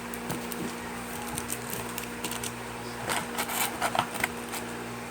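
Foil Yu-Gi-Oh booster packs crinkling and clicking as they are handled in their cardboard box, in scattered bursts that are busiest about three to four seconds in, over a steady low hum.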